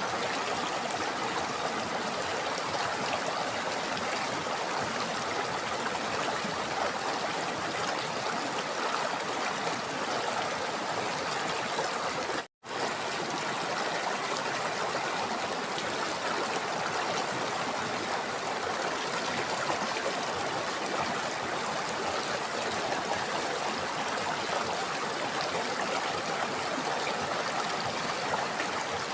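River water rushing and trickling steadily over rocks. The sound cuts out completely for a split second about twelve seconds in, then carries on unchanged.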